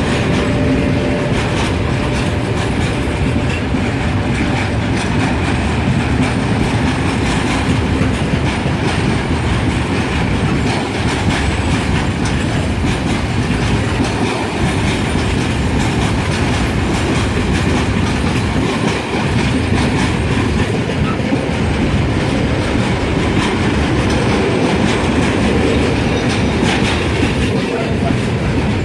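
Freight train behind a Renfe Class 253 electric locomotive passing through the station: a loud, steady rumble of wagons with wheels clattering over the rail joints.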